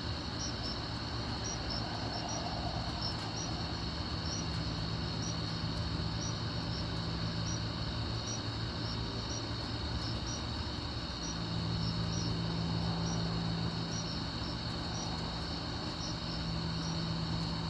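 Night insects, crickets among them: a continuous high trill, with chirps about twice a second over it. Under them runs a steady low mechanical hum, which gets a little louder about 11 seconds in.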